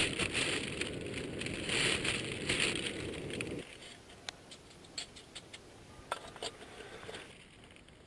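Rough rustling and buffeting noise for about three and a half seconds that cuts off abruptly. A quieter stretch follows, with scattered faint clicks and crackles.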